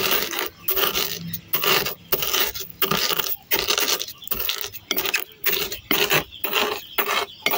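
Wooden pestle pounding and grinding coarse salt and red chilies in a stainless steel bowl: rhythmic scraping strokes against the metal, about two a second.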